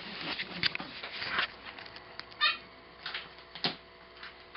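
Colored pencils clicking and rattling as they are handled and put into a holder and box, with a few sharp clicks. A little past halfway there is one short, high-pitched cry.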